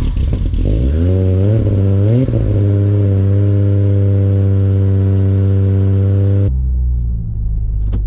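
Ford FG Falcon's freshly built, not yet tuned engine, heard at the exhaust from behind the car: revved in two quick blips, then held steady at high revs for about four seconds, then dropping abruptly to a low idle rumble.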